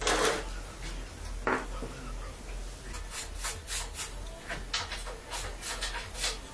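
Small engine parts clatter on the workbench as they are handled, once loudly at the start and again about a second and a half in. From about three seconds in come short scraping strokes, roughly three a second.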